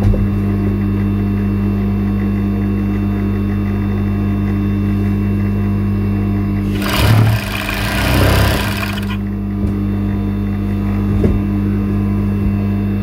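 Industrial overlock sewing machine running, its motor giving a steady hum, with a louder, rougher stretch of machine noise about seven to nine seconds in as the knit fabric is run through.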